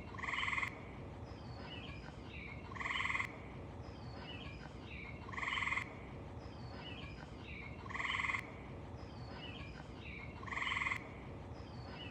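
A short buzzy croaking call repeats five times, exactly every two and a half seconds and identical each time, each ending in a sharp click, like a looped recording. Faint chirps sound between the calls over a steady hiss.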